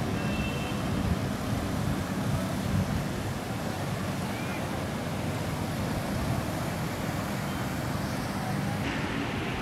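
Steady traffic noise on a rain-soaked street: a continuous low rumble with a hiss over it.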